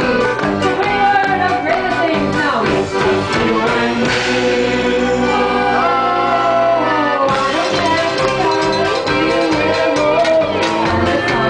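Live band music: a woman singing while playing a piano accordion, with electric guitar and drums. Midway the drums drop out for a few seconds under long held notes, then the full band comes back in.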